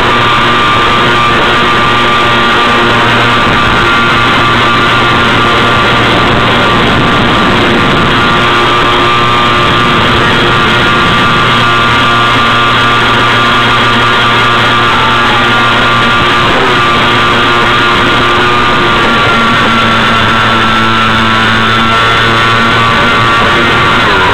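Radio-controlled boat's motor running at a steady speed, recorded by a camera on board: a loud, even drone with a whine that shifts a little near the end.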